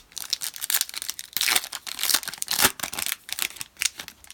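Foil trading-card pack wrapper being torn open and crinkled, a quick run of crackling rustles.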